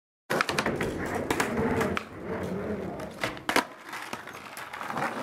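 Skateboard wheels rolling over paving stones, a rough rumble broken by several sharp clacks of the board, the loudest about three and a half seconds in.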